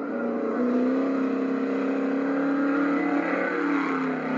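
Trophy Truck race engine running hard at high, steady revs. The pitch sags briefly near the end and then picks up again.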